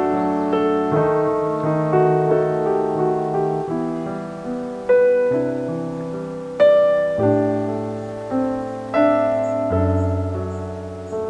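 Background piano music: slow, gentle notes and chords, each struck note ringing and fading away.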